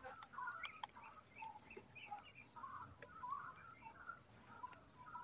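Birds calling in short, scattered chirps throughout, over a steady high-pitched insect drone.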